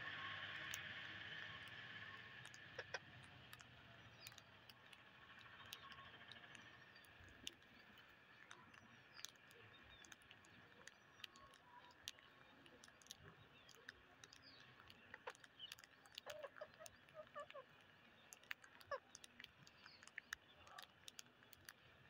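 Faint, irregular sharp clicks of rose-ringed parakeets' beaks pecking rice grains off concrete, with a few short, soft squeaky calls from the flock between about 16 and 19 seconds in.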